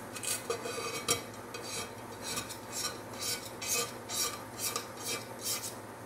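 Razor blade scraping dried web-paint resist off sandblasted glass in short, irregular strokes, about two a second. The paint is clinging and not coming away easily.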